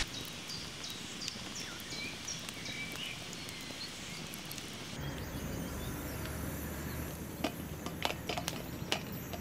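Birds chirping over a faint outdoor background. About five seconds in the sound switches to a low hum, and near the end a run of sharp taps comes as green pimientos are dropped onto a steel fire-ring plancha.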